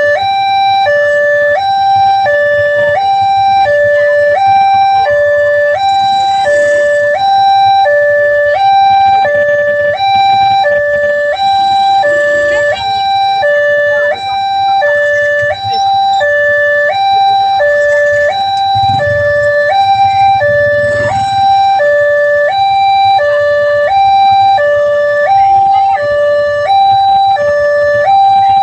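Railway level-crossing warning siren sounding continuously: an electronic two-tone alarm switching back and forth between a higher and a lower pitch, warning of an approaching train.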